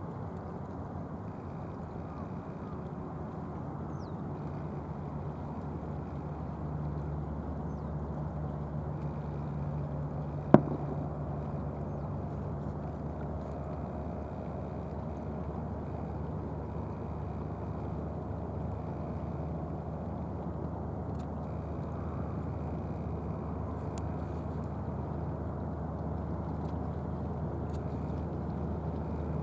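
Outboard motors of nori-farming boats running at speed as the boats pass, a steady low drone. A single sharp click comes about ten seconds in.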